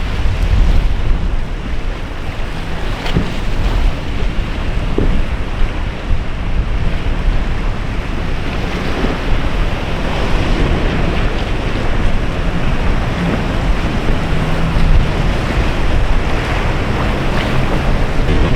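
Waves and surf churning, with wind buffeting the microphone. A boat engine runs faintly beneath the roar.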